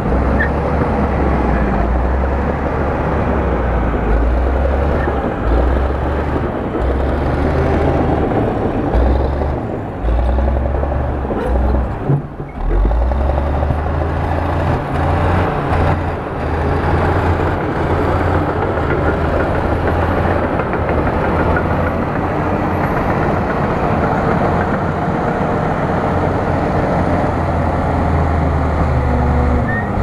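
Bulldozer's heavy diesel engine running under varying load, a deep rumble that swells and eases, dropping off briefly about twelve seconds in.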